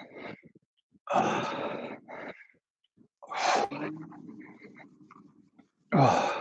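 Forceful, heavy exhales of a man working hard in a resistance-band workout: three rough puffs of breath, about a second in, in the middle and near the end, the middle one trailing off into a faint low hum.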